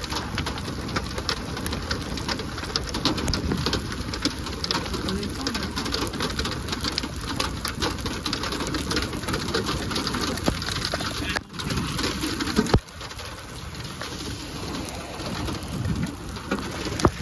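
Hail and rain drumming on the body of a car, a dense rattle of small impacts. The sound cuts out briefly twice about two-thirds of the way through.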